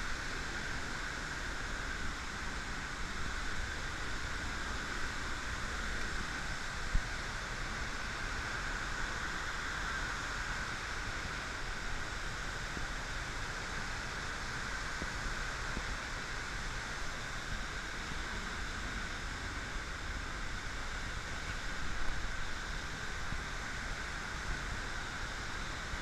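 A tall waterfall plunging into its pool, giving a steady, unbroken rush of falling water.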